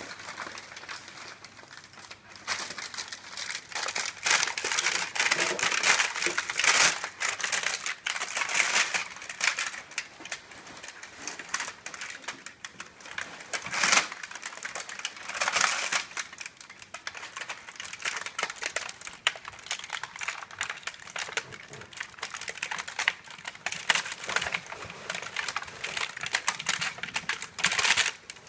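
Thin plastic bags and packaging crinkling and rustling as puppies walk on, paw and chew them, with many small irregular clicks and taps.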